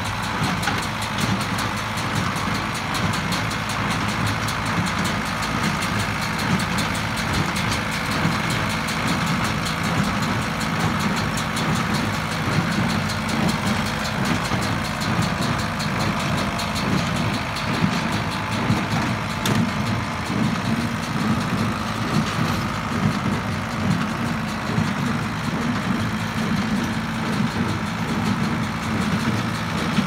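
Ford 7000 tractor's four-cylinder diesel engine running steadily as it pulls a Massey Ferguson 124 square baler through the hay, with the baler working behind it.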